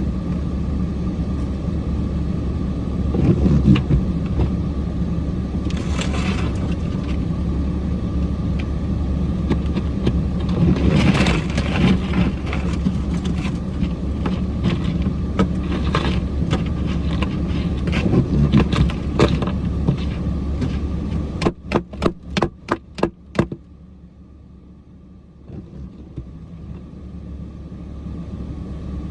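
Cummins diesel truck engine running steadily, with scattered scraping and knocking from the truck as it works in the snow. Near the end comes a quick run of about eight knocks, about four a second, then the engine sound drops away and slowly builds again.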